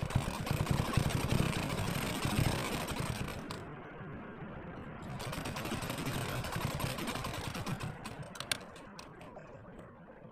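Sewing machine stitching in two runs, about three and a half seconds and then about three seconds, with a short pause between, followed by a few sharp clicks.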